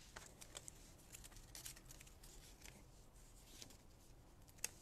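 Near silence with faint scattered clicks and rustles of paper and craft supplies being handled, and one sharper click near the end.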